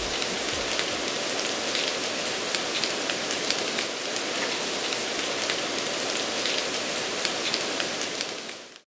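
Thunderstorm rain falling steadily: an even hiss dotted with many sharp drop taps, fading out just before the end.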